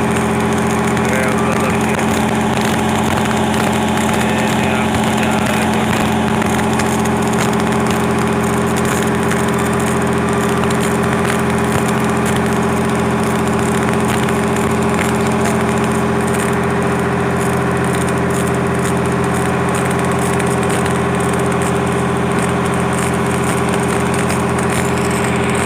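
Engine of a heavy machine running steadily at constant speed, with an even, unchanging tone: the engine and power pack are freshly repaired and ready for work.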